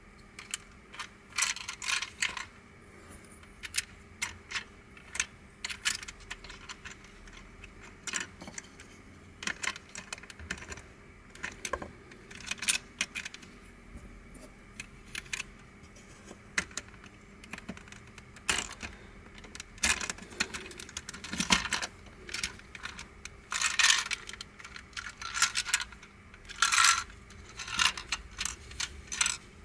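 Hard plastic twisty-puzzle pieces of a Crazy Octahedron Plus clicking and clattering as they are handled and fitted together during assembly. The clicks come singly and in uneven clusters, with the busiest runs in the second half.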